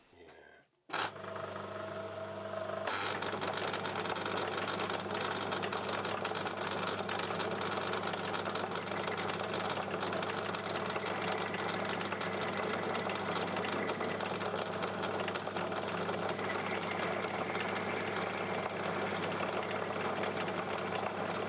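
Myford Super 7 metal lathe running with a steel rod turning in its chuck: a steady mechanical hum of motor and gearing that starts abruptly about a second in and grows fuller about three seconds in.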